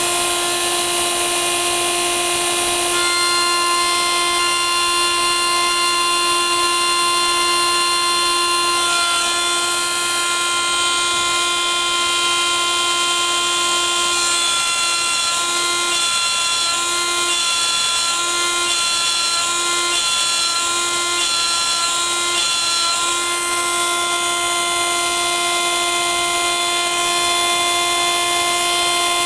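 Small milling spindle running with a steady high whine as a fine end mill cuts into a Weller RT3 soldering iron tip. For several seconds in the middle, the lowest note of the whine comes and goes in short, regular pulses, then runs steady again.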